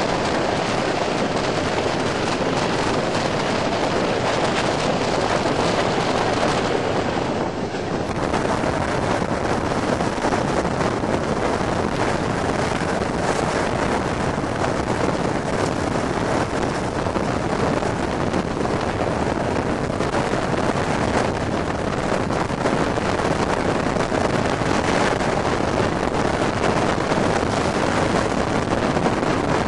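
Wind rushing over the microphone held out of the window of a moving train, over the running noise of the train and its Sulzer diesel locomotive. The level dips briefly about eight seconds in, and the low rumble is fuller after that.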